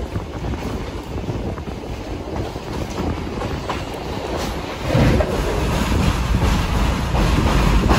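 Train running along the track, heard from a carriage window: a steady low rumble of wheels on rails with wind buffeting the microphone, growing louder about five seconds in.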